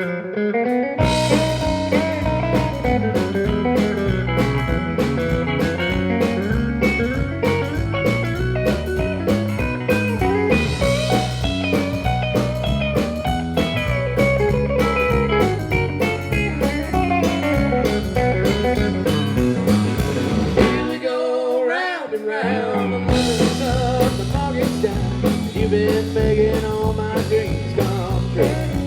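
Live country band playing an instrumental break, with a lead guitar over bass and a steady drum beat. About 21 seconds in, the bass and drums drop out for a couple of seconds while a lone line bends in pitch, then the full band comes back in.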